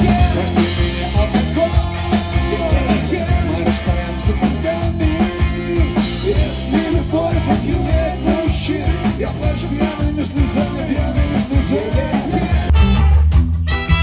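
Live rock band playing a song: singing over drums, electric bass and acoustic guitar. About a second before the end the mix drops out briefly and a trumpet comes in with clear held notes.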